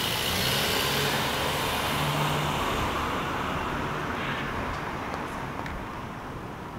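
Traffic noise: a motor vehicle going by on the street, a rushing sound with a low engine hum, loudest over the first few seconds and slowly fading away.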